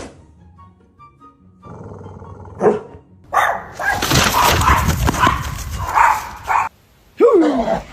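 A dog barking loudly several times, starting about three seconds in.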